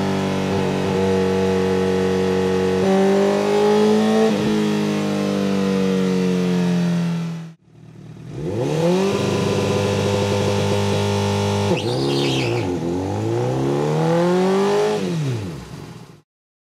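Honda CBR1000RR's inline-four engine running on a dyno, held steady near 6,000 rpm for several seconds. After a brief break it is revved again, climbing, dipping and climbing with the throttle, then falls away near the end.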